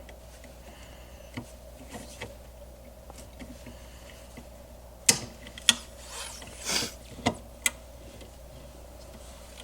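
Light sharp clicks and short scrapes of metal and plastic parts as a replacement handbrake handle is worked onto the handbrake lever by hand, starting about halfway in.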